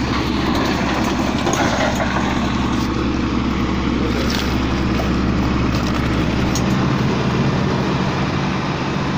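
Crawler excavator's diesel engine running steadily, a low droning hum whose deepest note shifts slightly about seven seconds in.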